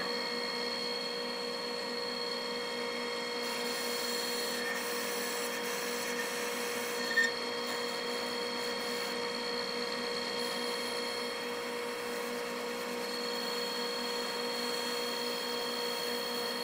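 Precision Matthews metal lathe running at steady speed with a steady whine of several tones, while a carbide radius insert cuts a thread-relief groove into the spinning metal shaft, giving a scraping cutting sound. One short tick comes about seven seconds in.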